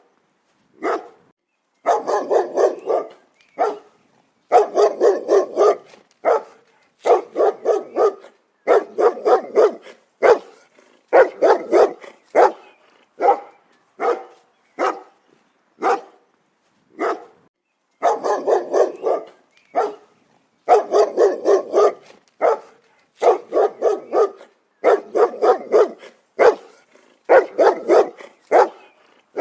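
Dog barking in quick runs of several barks each, with brief pauses between the runs.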